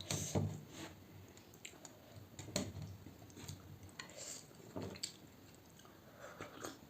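A person chewing fish curry close to the microphone, with soft wet mouth smacks and small clicks every second or so.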